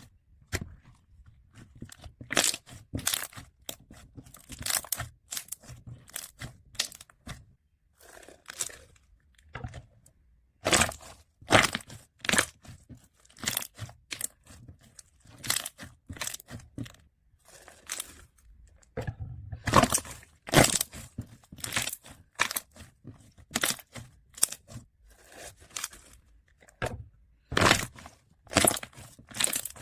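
Bubbly slime being squeezed and stretched by hand, its air pockets popping in irregular clusters of sharp crackling snaps with short pauses between.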